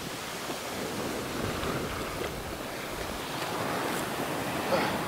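Ocean surf washing up a sandy beach, the foaming swash rushing around the wader's legs in a steady noise.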